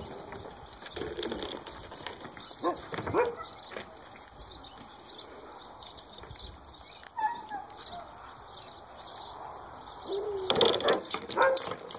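Sled dogs in a kennel yard giving occasional short whines and yips, with a louder cluster of barks near the end.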